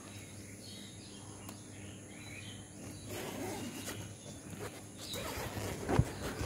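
Tent door zipper being pulled open in short scratchy runs from about halfway in, with a sharp knock near the end. Faint bird chirps come in the first half.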